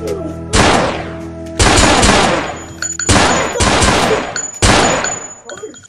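Gunshot sound effects: five loud shots at uneven intervals, each with a long echoing tail.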